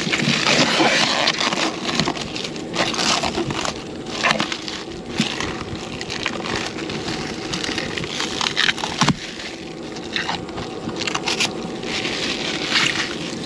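Protective wrapping being peeled off and crumpled: an irregular run of crackling rustles with scattered sharp snaps, one louder snap about nine seconds in.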